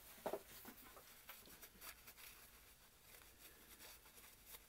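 Faint paper-towel rustling and small handling clicks as a paper towel is rubbed over a glued plastic lure body, with a soft knock about a third of a second in.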